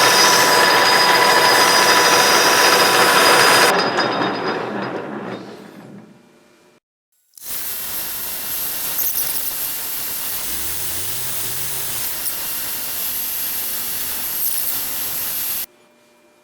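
Metal lathe turning a newly cut lead screw while the thread is cleaned of its burrs: a loud, steady hiss that fades away. After a break the lathe runs again with a quieter hiss and a low hum rising in pitch, then cuts off suddenly near the end.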